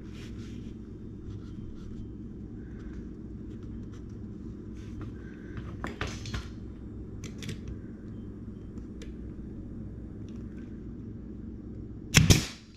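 Pneumatic nailer firing into a small piece of wooden baseboard trim near the end: one short, loud, sharp crack. Before it, light knocks and rubbing as hands position the wood, over a steady low hum.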